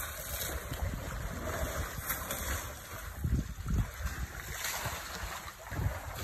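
Wind buffeting the phone's microphone in irregular low gusts, with the strongest a little past the middle, over a steady outdoor hiss.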